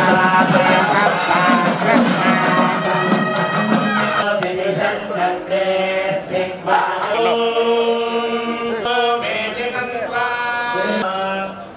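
Indian devotional music: chant-like singing over a steady drone.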